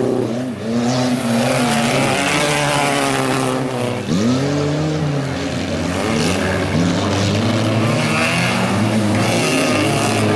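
Engines of several stock cars racing on a dirt track, revving up and down at different pitches as they power through the corners, with a sharp drop and climb in revs about four seconds in.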